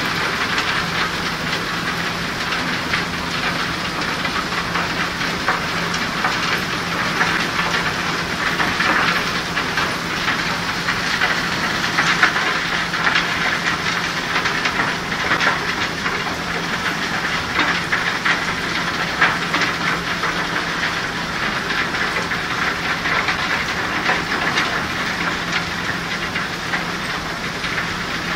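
Cassiterite sand processing plant running: a steady wash of machinery rattle and flowing slurry water from the jig separator and sand chute, with a steady motor hum underneath.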